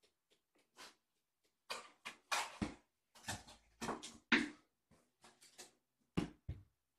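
A run of short, irregular scuffles and knocks, about a dozen in a few seconds: kittens scrambling and pouncing on a hard floor after tossed toys.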